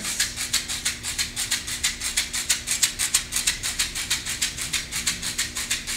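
A hand rattle shaken in a steady, fast rhythm, about seven shakes a second.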